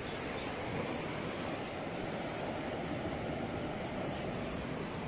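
Steady wash of sea waves along a rocky shore: an even rushing noise with no distinct splashes or knocks.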